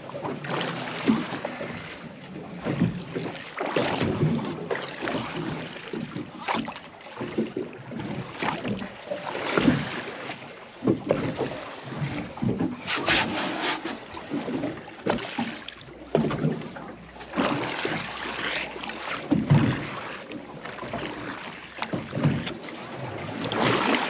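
Gusty wind buffeting the microphone over water splashing against the hull of a small boat at sea, in uneven surges.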